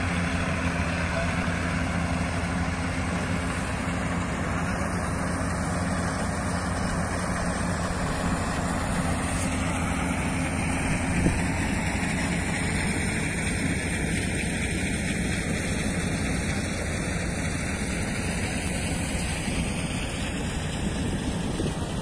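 Combine harvester running while harvesting wheat: a steady engine drone with a low hum and the rush of the threshing machinery, with one brief click about halfway through.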